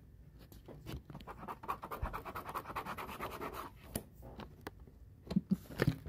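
Stylus tip scratching and tapping across a phone's glass touchscreen in quick, short drawing strokes.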